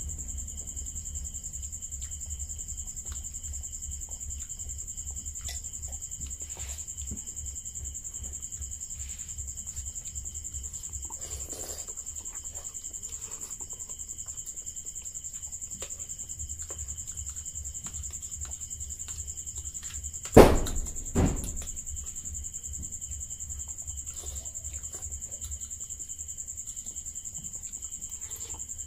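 Two people eating noodles, with forks clicking and scraping faintly on ceramic plates. Under it run a steady high-pitched whine and a low hum. Two sharp knocks come close together about twenty seconds in.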